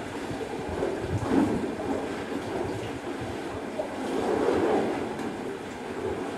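Irregular rubbing and scuffing noise from a caver's suit, gloves and boots against the rock walls as he braces across a narrow rift, swelling louder around the middle.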